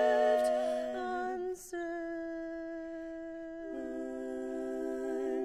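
Women's barbershop quartet singing a slow ballad a cappella, holding long close-harmony chords. The sound breaks briefly for a breath about a second and a half in, then comes back on a new chord, which shifts again near the four-second mark.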